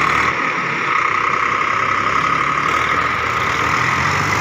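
Swaraj 855 tractor's diesel engine running steadily under load while hauling a loaded trolley over soft field ground. Its low note grows stronger near the end.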